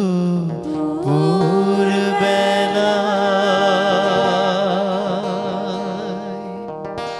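A male and a female singer singing a Bengali song together, closing on one long held note with vibrato that begins about a second in and fades near the end.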